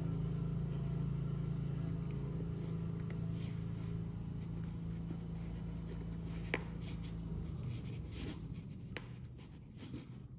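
A steady low machine hum that stops about three-quarters of the way through, with a few light clicks and rustles as a canvas tool bag is handled.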